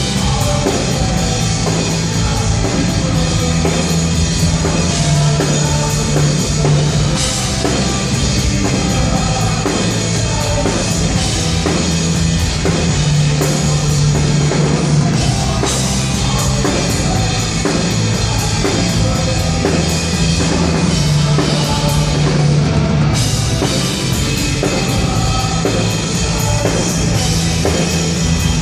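Rock band playing loud live, with a driving drum kit, bass and electric guitars.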